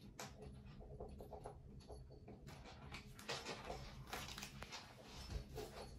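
Faint scuffling and rustling of house cats rolling and tussling on a wooden floor and a paper catnip packet: a string of small soft taps and rustles, a little busier in the second half.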